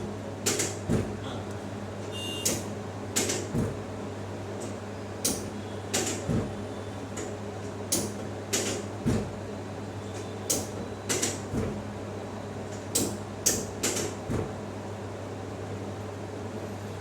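Irregular sharp clicks and soft thumps from hands-on chiropractic work on a patient, about twenty in all, over a steady low hum.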